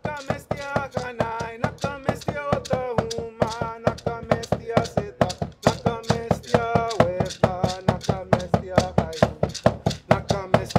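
A voice chanting long held notes over a steady drumbeat of about four strokes a second.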